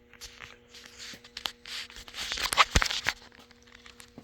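Gore-Tex jacket fabric rustling and crinkling as it is handled, with a few sharp clicks, loudest a little past two seconds in, over a faint steady hum.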